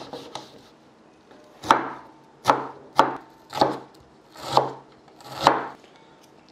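Kitchen knife chopping half an onion on a wooden cutting board: faint slicing, then six sharp knocks of the blade on the board, spaced about half a second to a second apart.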